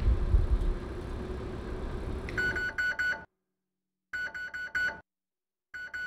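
Microwave oven running with a low hum, then its end-of-cycle beeping: quick runs of short, high beeps in three groups, broken by abrupt dead-silent gaps. The beeps signal that the cooking is done.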